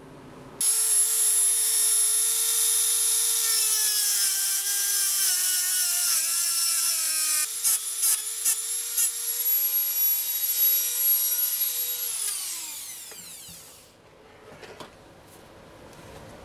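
Dremel rotary tool grinding off the rivet of a caster wheel held in a vise. The motor whines at a steady high pitch that sags as it bears into the rivet. It stops briefly with a few clicks, runs again, and then winds down with a falling pitch.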